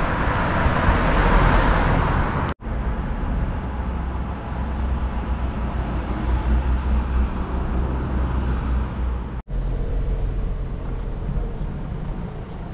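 Road traffic in a town street: a vehicle passes loudly in the first couple of seconds, then a steady low rumble of traffic continues. The sound drops out abruptly twice, briefly.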